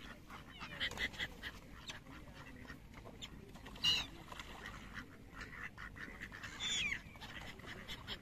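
Gulls and mallard ducks calling, many short squawks and quacks overlapping, with a louder call about four seconds in and a longer falling call near seven seconds.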